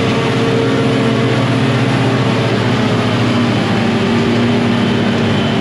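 Diesel engine of a John Deere 6910 self-propelled forage harvester running steadily, with its pitch shifting slightly.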